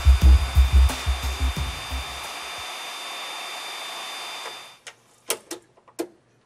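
Jet engine running on a test stand: a steady rushing roar with a high whine, over music with a steady low beat that stops about two and a half seconds in. The roar cuts off suddenly about three quarters of the way through, leaving a few sharp clicks.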